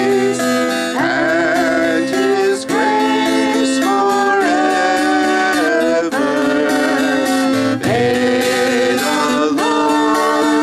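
Music: acoustic guitar playing with a sustained melody line over it, notes changing every second or so.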